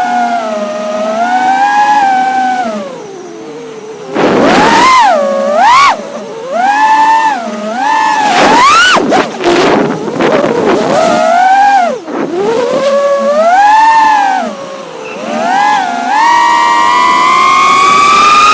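Brushless motors and propellers of a 5-inch FPV freestyle quadcopter whining, the pitch swooping up and down quickly with throttle changes. It drops low and quieter about three seconds in, and rises steadily near the end as the throttle is held up.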